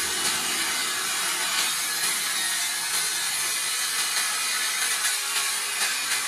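Handheld electric circular saw running steadily and cutting lengthwise through a piece of hardwood.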